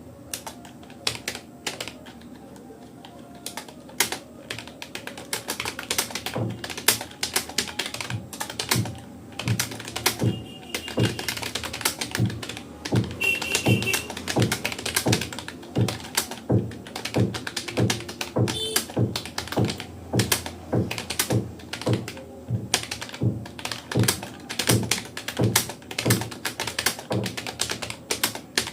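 Typing on a Rapoo computer keyboard: a few scattered keystrokes at first, then fast, steady typing with the keys clicking in quick succession.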